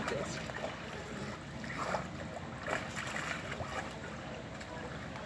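Water splashing and sloshing in irregular bursts as two brown bear cubs wrestle in a pool.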